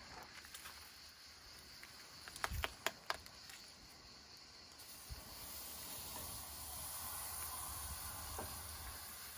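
A few sharp clicks and knocks about two and a half to three seconds in, then a steady sizzling hiss from about five seconds in, as a sous-vide-cooked rooster sits on a metal grill over hot charcoal embers.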